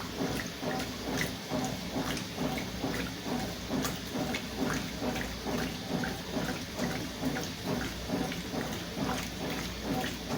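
Consul CWS 12 top-load washing machine agitating a load of sheets and towels in rinse water just after dispensing the fabric softener: rhythmic sloshing and churning at about three strokes every two seconds.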